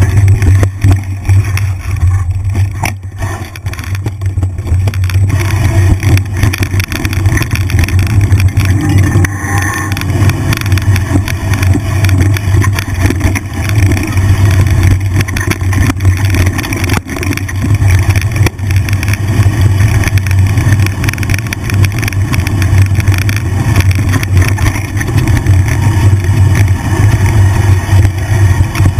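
Wind buffeting a bike-mounted GoPro's microphone during a mountain bike ride on a dirt trail, a loud steady low rumble with an occasional knock from the bike over the ground.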